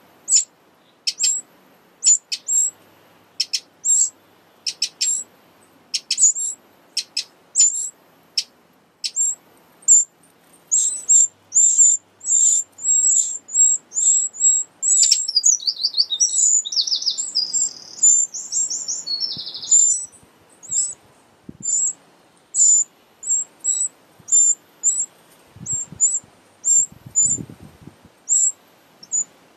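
Eurasian wren nestlings at the nest giving short, very high-pitched begging calls, about two to three a second. Midway they swell into a louder, buzzy begging chorus as an adult wren feeds them, then drop back to the short calls. A few low rustles come near the end.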